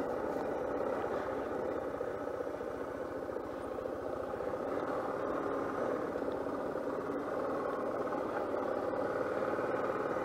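Suzuki DR650's single-cylinder four-stroke engine running steadily at low speed as the bike rolls along a dirt track, with no revving or change in pitch.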